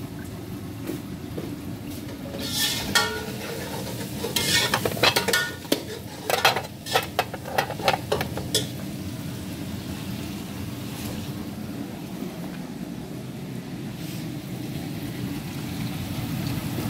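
Steel cooking pots and utensils clattering and knocking against each other in a quick run of sharp clinks, bunched between about two and nine seconds in, over a steady low rumble of cooking on the hob.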